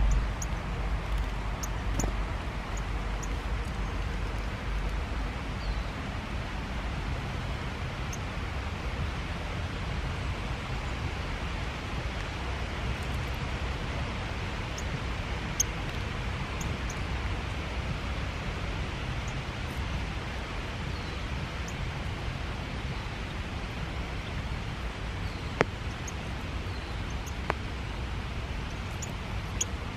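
Steady rain falling, with scattered small drips ticking close by and a few sharper knocks.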